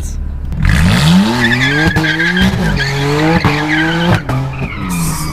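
BMW engine revving hard from inside the cabin, its revs climbing steeply about half a second in and then rising and falling as the car drifts, with the tyres squealing and skidding through the middle.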